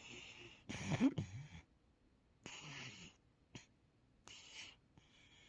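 Sleeping English Setter breathing noisily and snoring in its sleep. About a second in comes a loud, short, muffled dream vocalisation with a bending pitch, then several shorter hissy breaths at irregular intervals with quiet gaps between them.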